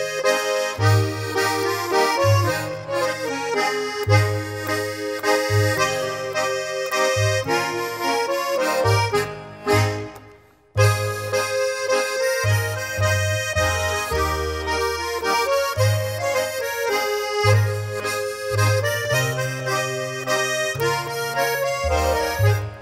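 Accordion playing a Swiss folk mazurka: a melody over a pulsing bass line. The music drops out briefly about ten seconds in, then carries on.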